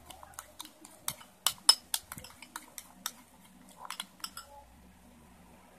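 Metal spoon clinking against a glass bowl while stirring a thick slime mixture. The clinks come quick and irregular and stop about four and a half seconds in.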